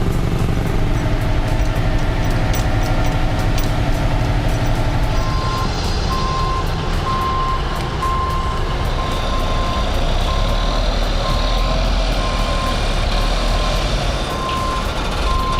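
Heavy truck engine running, with a reversing alarm starting about five seconds in and beeping at one steady pitch, a little more than once a second.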